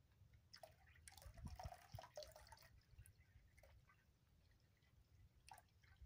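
Faint splashing and dripping of water as a cat paws at the falling stream of a swan-neck pet water fountain: a run of small splashes in the first few seconds, then a couple of single drips and splashes.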